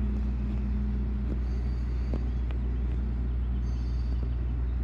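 BNSF double-stack container train rolling past: a steady low rumble of wheels on the rails, with a few faint clicks.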